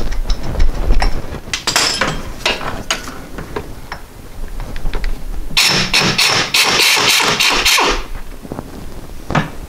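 Pneumatic wrench, fed by an air hose, hammering in a burst of about two seconds in the middle on a seized Allen bolt of the water pump pulley. Before it come scattered metallic clicks and knocks of a hand wrench and ratchet on the bolt.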